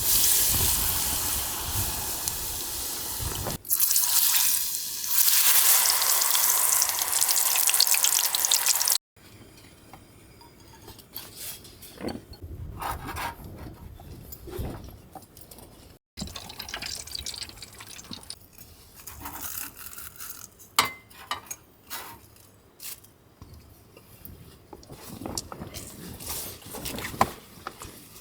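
Water running or pouring in a loud, steady rush for about nine seconds, broken briefly once. After that come quieter scattered clicks and knocks.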